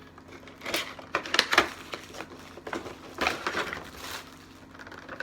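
Packaging rustling and crinkling as items are handled and unwrapped, in a run of uneven scrapes and rustles.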